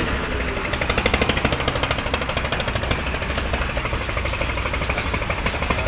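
Diesel engine of a klotok, a small wooden motorboat, running with a rapid, even knocking beat.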